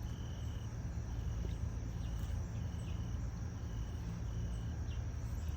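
A cricket chirping in short, evenly spaced chirps, a little under one a second, over a low steady hum.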